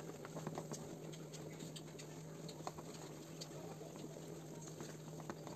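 Ground cashew and onion masala paste frying in hot oil in a nonstick kadai, sizzling faintly with small irregular crackles and pops as it is stirred with a wooden spatula.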